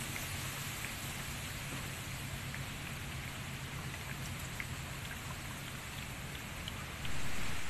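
Steady rain falling, with scattered drops ticking. The hiss steps up louder about seven seconds in.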